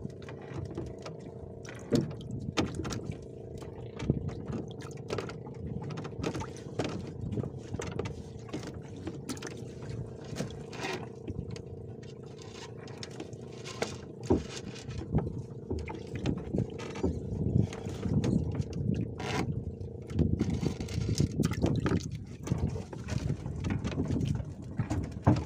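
Water sloshing and splashing close by, with frequent sharp knocks and scrapes. Beneath it runs a steady hum that fades out about three-quarters of the way through.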